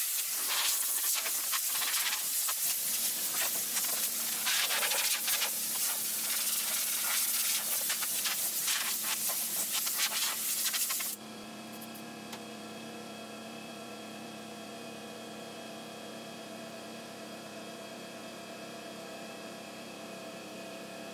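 Aerosol spray can hissing for about eleven seconds, then cutting off abruptly. A quieter steady hum with several fixed tones carries on after it.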